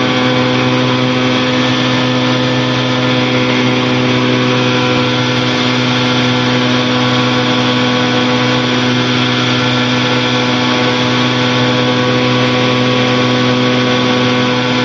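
Challenger II light-sport aircraft's engine and propeller droning steadily in flight, an even hum that holds one pitch.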